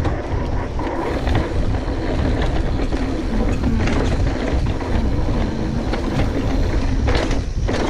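Polygon Siskiu N9 full-suspension mountain bike descending a dirt trail at speed, tyres rolling over dirt and dry leaves while the chain and frame rattle with constant small clicks, over a steady rumble of wind on the bike-mounted camera's microphone.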